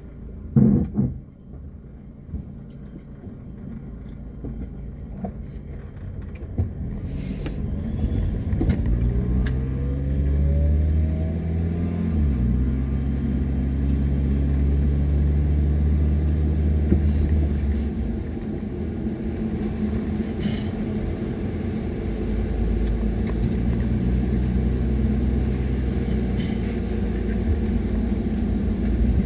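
A thump about a second in, then a car pulling away: the engine note rises steadily, drops sharply around twelve seconds in as it shifts gear, then runs at a steady cruising speed.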